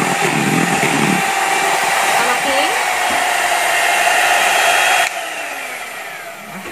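Electric hand mixer running steadily, its beaters whipping eggs and sugar into a thick, creamy sponge-cake batter in a metal bowl. About five seconds in the sound drops sharply, and the motor's pitch falls as the beaters slow.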